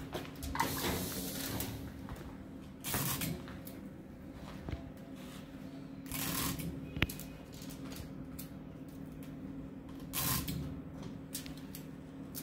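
Aluminium foil rustling and crinkling in several short bursts as it is handled on a foil rewinder machine's rollers, over a steady low hum from the machine. A single sharp click comes about seven seconds in.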